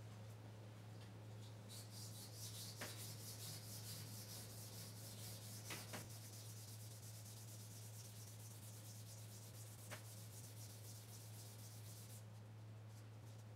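Strip of 800-grit abrasive pulled rapidly back and forth around the steel crankpin journal of a 10 HP Briggs & Stratton crankshaft: a fast, even rasping rub that starts about two seconds in and stops about a second before the end, with a few light clicks. A steady low hum runs underneath.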